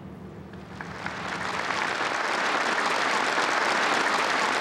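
Large crowd applauding: the clapping starts about a second in and swells to a steady, dense applause.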